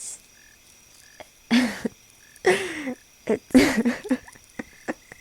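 A person's voice: three short, breathy vocal sounds about a second apart, each falling in pitch.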